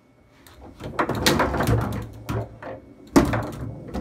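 Foosball table in play: the ball and rods clacking and knocking against the players and table walls in quick irregular hits, with one loud sharp crack about three seconds in.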